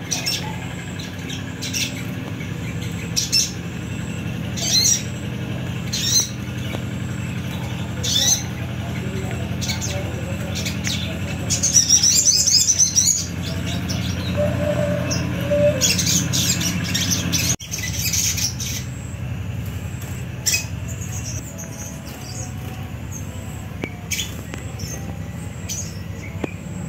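Caged sogon (sogok ontong), a small nectar-feeding bird, giving short, sharp, high chirps every second or two, with a quick chattering run about twelve seconds in and another around sixteen seconds, over a steady low hum. A bird that had long refused to sing, now calling.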